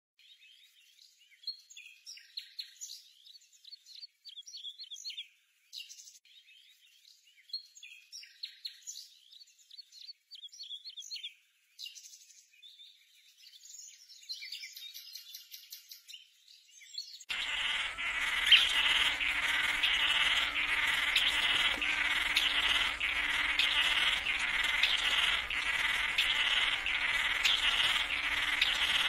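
Forest birds giving short chirps and calls in scattered bursts. A bit more than halfway through, the sound cuts abruptly to a dense, louder insect chorus that pulses evenly, about once a second.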